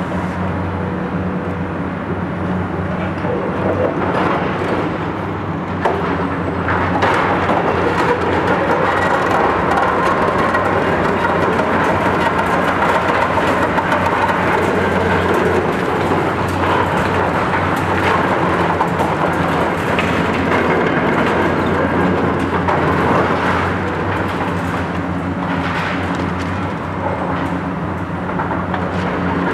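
Diesel engines of two Cat high-reach demolition excavators running steadily under load, with a dense, continuous clatter and crunching of concrete and steel being broken down that grows louder about seven seconds in.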